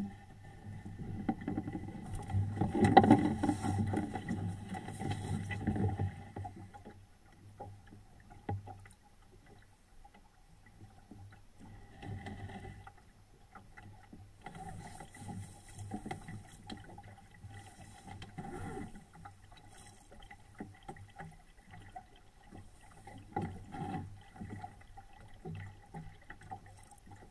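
Water splashing and rushing along the hull of a small SCAMP sailboat under sail, in uneven surges, loudest for a few seconds near the start.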